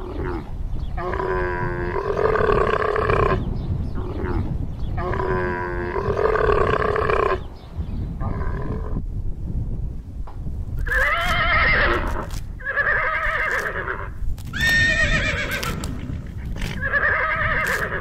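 Dromedary camels calling: two long, flat calls and a short one. Then a horse neighs four times, each call rising and falling in pitch, over a steady low rumble.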